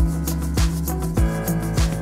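Upbeat background music with a steady drum beat, a kick landing about every 0.6 seconds under bass and chord notes.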